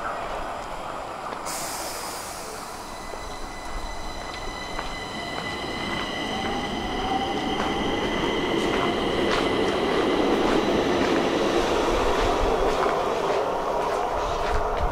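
Stockholm metro train heard from inside the car: rolling noise with a high, steady squeal of several tones from the wheels on the rails. A short hiss comes in about a second and a half in, with scattered clicks, and the running gets louder in the second half.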